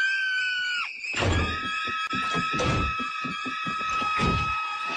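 Cartoon girl's high-pitched scream lasting under a second, then a steady high-pitched tone held on under a run of irregular dull thumps.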